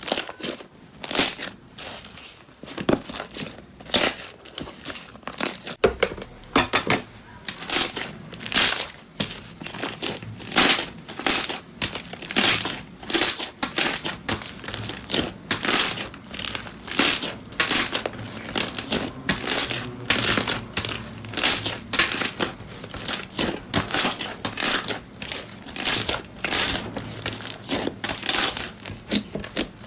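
Slime being squeezed and pressed by hand, giving a steady run of sharp crackles and crinkles, about two a second.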